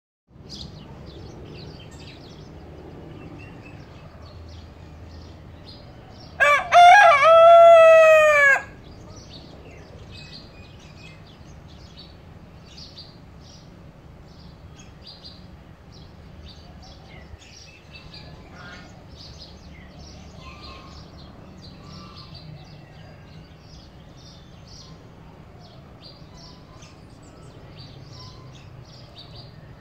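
Australorp rooster crowing once, about six seconds in: a loud cock-a-doodle-doo of about two seconds, its last note falling in pitch. Small birds chirp faintly throughout.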